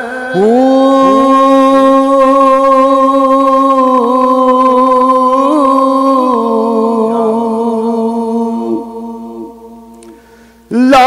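Man singing a Punjabi Sufi kalam, holding one long drawn-out note for about six seconds before his voice wavers and fades away. It comes back strongly just before the end.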